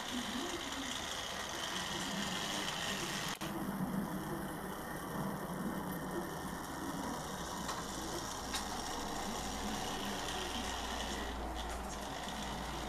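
Model train locomotive's small electric motor and gearing running steadily as it hauls a coach along the track.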